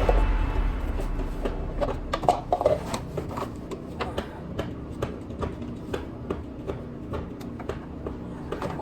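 Irregular clinks and knocks of metal hand tools at work, a few of them ringing briefly, while the low tail of a music sting fades out in the first second.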